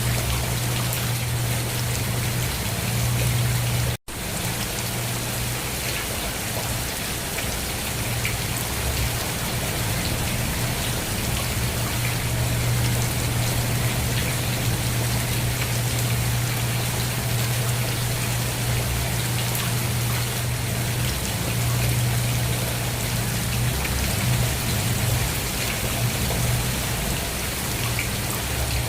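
Steady rain falling and pattering on a surface, with a constant low hum underneath. The sound cuts out for a split second about four seconds in, then carries on as before.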